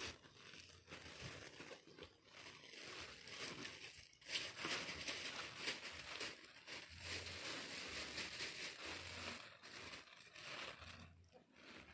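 Clear plastic sheeting crinkling and rustling as it is pulled taut and smoothed by hand, irregular and louder from about four seconds in.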